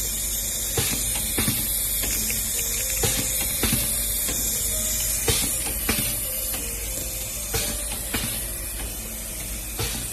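Vertical measuring-cup granule sachet packaging machine running: a pair of mechanical clacks from its sealing and cutting jaws about every two seconds, one per packing cycle, over a steady hiss and hum.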